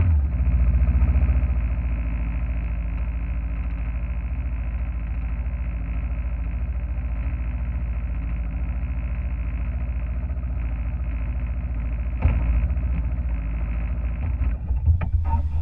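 Motorcycle engine running at a steady speed, a constant low drone that swells briefly about twelve seconds in.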